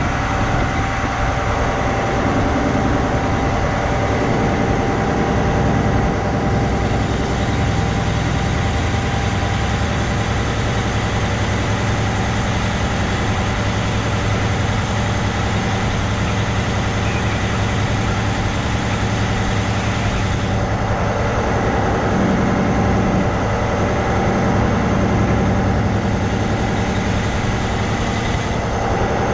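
Kenworth truck's diesel engine running steadily at low speed as the loaded rig creeps along, heard from outside the cab.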